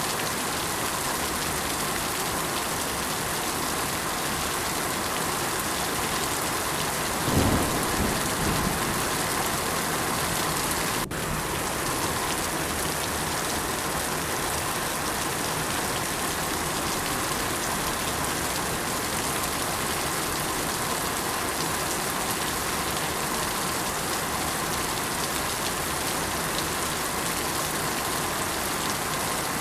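Steady heavy rainfall, with a low roll of thunder about seven seconds in that fades over a couple of seconds. A momentary drop-out about eleven seconds in.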